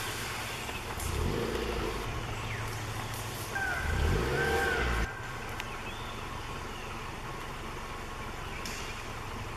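A motor vehicle's engine running, swelling twice into a low rumble and then dropping back suddenly about five seconds in.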